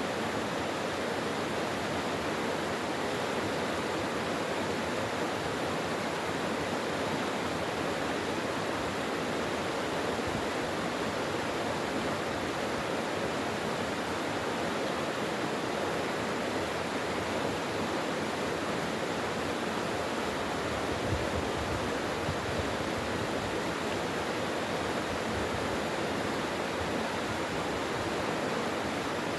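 Mountain stream rushing steadily over rocks: an even, unbroken water noise.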